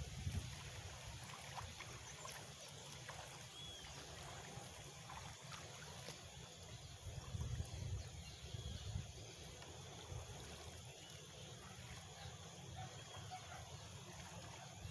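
Quiet riverbank ambience: faint trickling water and a low wind rumble on the microphone that swells a little midway, with a few faint high chirps now and then.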